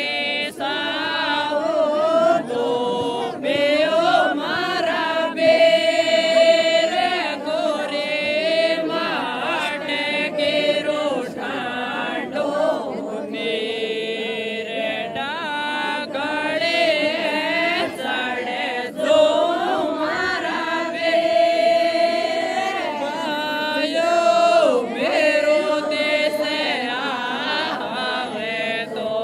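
A group of women singing a Rajasthani mayra folk song together, with long held notes and sliding phrases.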